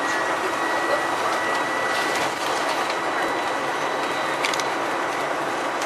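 Steady engine and road noise inside a moving bus, heard from the rear of the cabin by the engine, with a thin steady whine over it and a few faint rattles.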